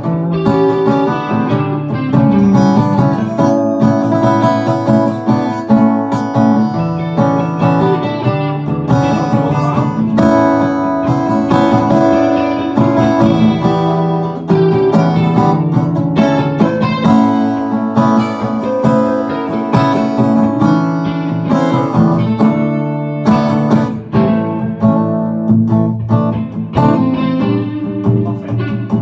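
Stratocaster-style electric guitar being played: a continuous run of picked notes and chords.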